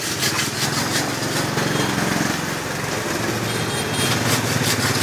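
A small engine running steadily at idle, with short clicks and scrapes of a ladle in a metal pot.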